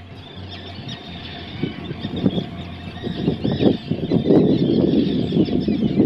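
Gulls calling repeatedly in short high cries. From about two seconds in, a rough, gusty rushing noise builds up and grows louder than the calls.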